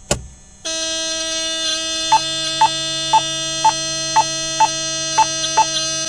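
Beechcraft King Air B100 landing-gear warning horn sounding as the takeoff out-of-trim warning: the left power lever has been advanced with the elevator trim outside the 0 to 2 degree nose-up takeoff range. A sharp click comes just before the horn starts, and the horn then holds a steady tone with a short pulse about twice a second from about two seconds in.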